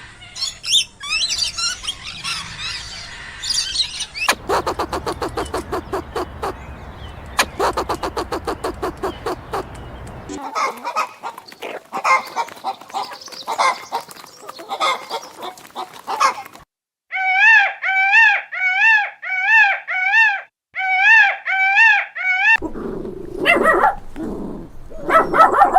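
A sequence of different animal calls, one after another: high bird chirping first, then runs of rapid repeated calls, then about eight short, clear, rising-and-falling calls in a row.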